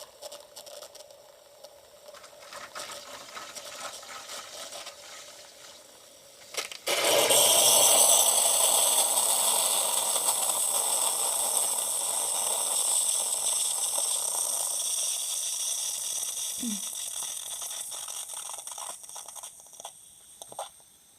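Bosch Tassimo pod coffee machine dispensing a milk pod: quieter running and rattling, then about seven seconds in a loud hiss starts suddenly and slowly fades as the milk finishes.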